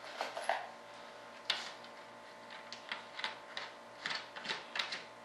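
Irregular light clicks and taps of hands working on a wing mold, a dozen or so small knocks spread unevenly, none much louder than the rest.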